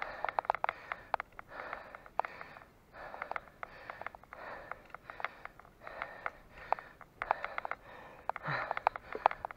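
A cyclist breathing hard under heavy effort: loud, noisy breaths about one a second, with small clicks among them and a short low grunt near the end.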